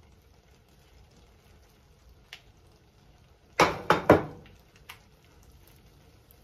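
Kitchen tongs clacking three times in quick succession about three and a half seconds in while serving fettuccine from a pan, with a lighter click before and after; otherwise faint room tone.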